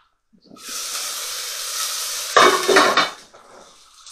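Onion and celery sizzling in a hot pan. About two and a half seconds in comes a louder spell of stirring against the pan.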